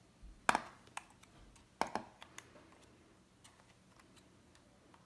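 Light clicks and taps of small faucet parts being handled: fingers pressing a spring and rubber washer into the cartridge seat of a chrome faucet body. Two sharper clicks stand out, about half a second and two seconds in, among a few faint ticks.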